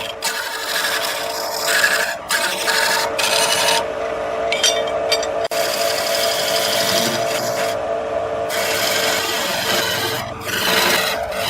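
A turning tool rubbing and cutting against wood spinning on a lathe, a continuous rasping in passes broken by brief pauses, over a steady hum.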